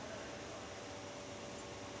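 A pair of 24 V brushless DC wheelchair gear motors running steadily under joystick control, giving a faint, steady whine.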